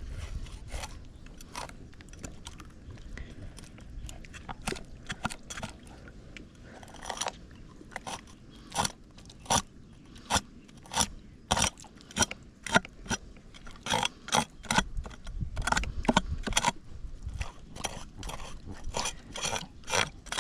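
A knife scraping and cutting through a fish in repeated short, sharp strokes. The strokes come more quickly and unevenly in the second half.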